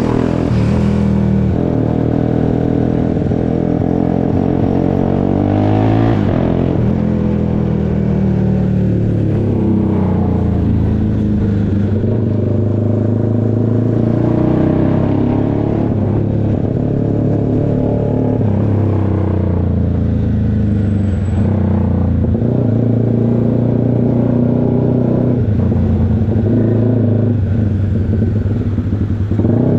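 Honda CBX 250 Twister single-cylinder four-stroke engine, bored out to 79 mm, running loud through a tuned exhaust. The engine note rises and falls several times.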